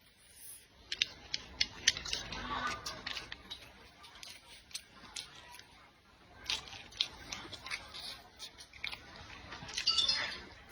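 Close-up eating sounds: chewing and slurping, with many short sharp clicks and smacks and a few louder slurps, about two seconds in and near the end.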